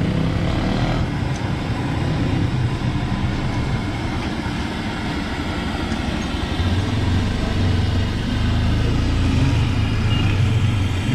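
Street traffic: vehicle engines running close by, with a deeper engine hum that grows stronger about halfway through.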